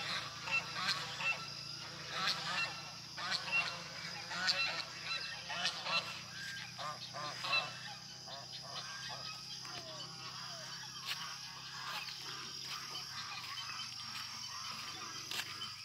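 A flock of white domestic waterfowl on a pond calling, many short calls in quick succession for about the first eight seconds, then fewer and fainter.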